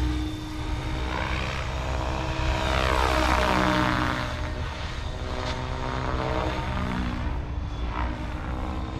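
SAB Kraken 580 electric RC helicopter in flight: the rotor blades and electric motor make a steady pitched drone. The pitch falls as it passes overhead about three seconds in, then rises again.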